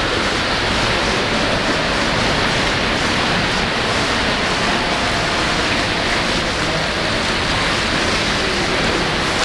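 Steady rushing and splashing of water in an indoor swimming pool as a swimmer swims freestyle through it.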